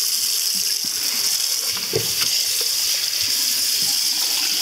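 Kitchen faucet running steadily into a stainless steel sink, the stream splashing over a whole raw rooster as it is rinsed and turned by hand. A soft knock about two seconds in is the bird being handled.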